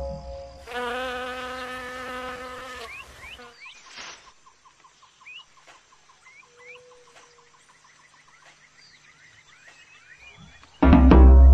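Nature sound effects: a loud call with a slightly wavering pitch lasting about three seconds, then a faint rapid insect trill and scattered short chirps. A loud deep pitched sound comes in near the end.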